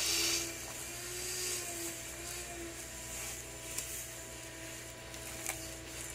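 A steady mechanical hum with a faint whine, broken by a brief rustle at the start and two light clicks later on.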